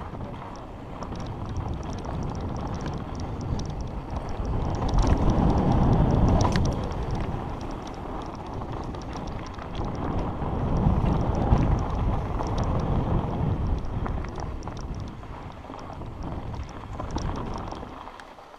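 Wind buffeting the microphone of a camera riding on a mountain bike at speed down a dirt trail, with tyres rolling and crunching over loose dirt and gravel and small rattles from the bike. The rush swells louder twice, about five seconds in and again about eleven seconds in.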